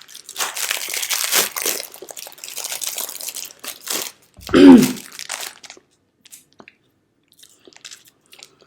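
Crinkling and crunching of a packaged marshmallow pie being handled and bitten for about four seconds, then a short, loud voiced sound from the eater, then faint scattered mouth clicks.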